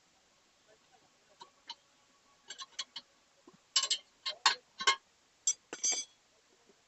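Scattered sharp clicks and knocks of steel tyre levers against the wheel rim and the bead of a tubeless tyre being levered off, with a quicker run of them about four seconds in.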